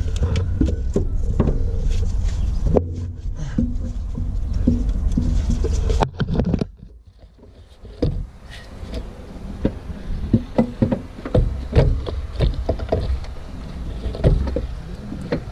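Scattered metal clinks and knocks of a Cummins fuel pump being worked into its mounting on the engine and bolted in, over a low rumble. The rumble drops away about six seconds in, after which the knocks and clicks come thicker.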